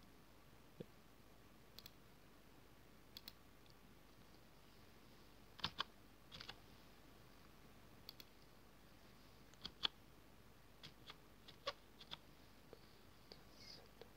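Faint, scattered clicks of a computer mouse and keyboard keystrokes, a dozen or so in all; a quick pair of clicks near the middle is the loudest.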